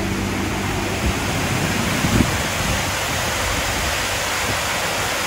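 Water rushing and churning over a low weir in a wetlands channel, a steady, even roar of whitewater.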